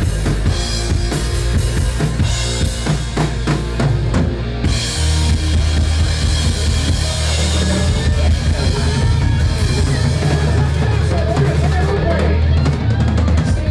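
Live rock band playing loudly: a drum kit leads, with bass drum and snare hits over amplified electric guitar and bass guitar. Quick drum strikes give way about five seconds in to a held cymbal wash over a steady bass.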